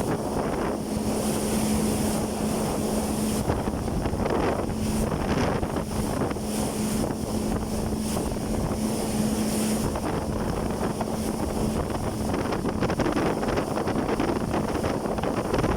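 Jet ski engine running steadily at speed, a constant hum under heavy wind on the microphone and rushing water.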